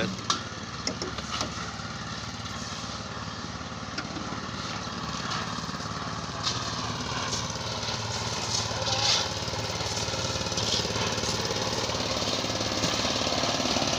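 Engine of a portable concrete mixer running steadily, with a few sharp clanks over it; the drone grows louder toward the end.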